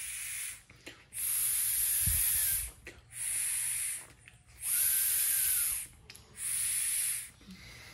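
Air blown by mouth through a 2016 Hyundai Tucson's windshield washer nozzle, hissing in five blows of about a second each. It is a flow test of a partly clogged nozzle that, even after cleaning, passes less air than the other one.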